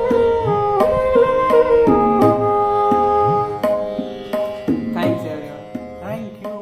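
Instrumental close of a ghazal: sustained melody notes stepping up and down over tabla strokes, the bass drum's pitch bending upward under several strokes. The music dies away over the last couple of seconds.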